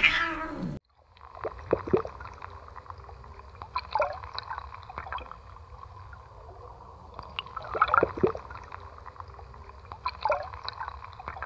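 Water gurgling and trickling, with louder irregular surges of water about four times, in the pond where a mallard and her ducklings swim. It opens with a short, loud falling whistle-like glide that cuts off abruptly.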